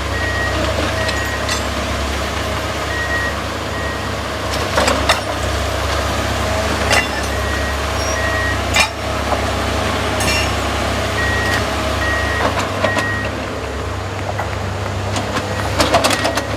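Railroad magnet crane's engine running steadily, with its backup alarm beeping in a run of short high beeps near the start and again about two-thirds through. Several sharp knocks come at intervals, as pieces of track hardware are picked up by the magnet.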